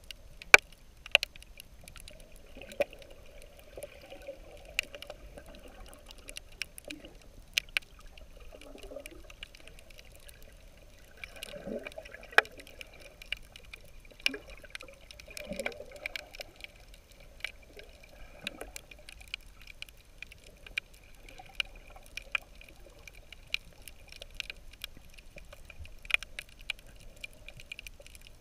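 Underwater sound: muffled water movement with a few bubbling gurgles, and irregular sharp clicks scattered throughout.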